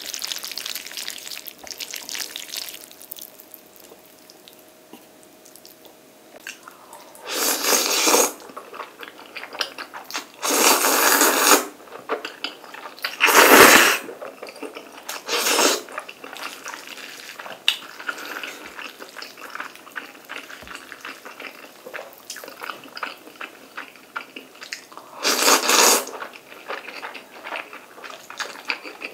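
Eating black bean sauce instant noodles with wooden chopsticks: about five loud noodle slurps spread through the stretch, between wet chewing and small clicks.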